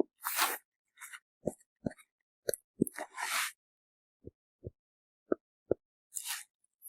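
Chest percussion on a patient's back: a finger tapping twice on the finger laid on the chest at each point, four pairs of short taps about 0.4 s apart with a pause between points. Brief soft rustles come in between the taps.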